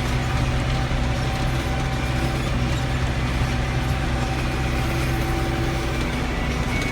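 John Deere 6310 tractor's diesel engine running steadily with a Hesston 565A round baler working behind it, picking up a windrow.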